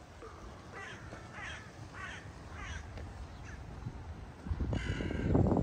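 Crows cawing in a short run of harsh calls about half a second apart, with another call near the end over a louder low rumble.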